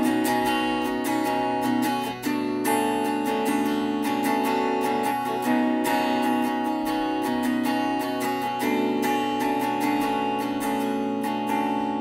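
Electric guitar with a capo at the second fret, strummed in a steady rhythm: A-minor-style chord inversions voiced up around the seventh and ninth frets, with open strings ringing. The chord changes about two seconds in.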